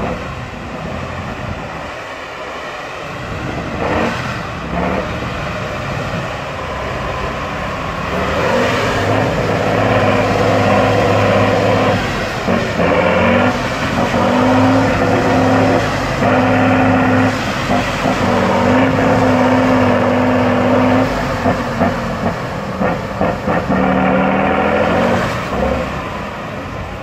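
Off-road trial truck's diesel engine working under heavy load in deep mud, getting much louder about a third of the way in and holding high revs, then rising and falling in revs near the end.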